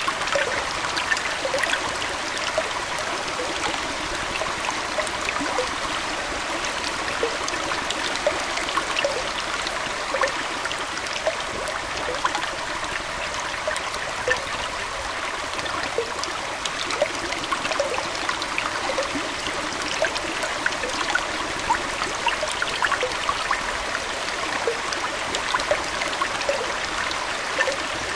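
Aquarium water flowing and trickling steadily, with many small plinks of dripping and bubbling scattered throughout.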